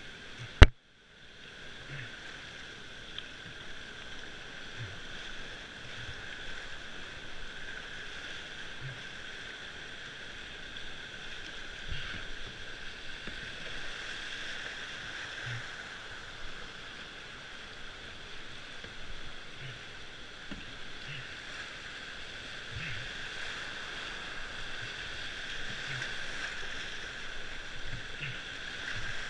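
Whitewater rapids rushing steadily around a slalom canoe, with soft splashes of the paddle strokes about every second. A single sharp knock about a second in is the loudest sound, followed by a moment of near silence.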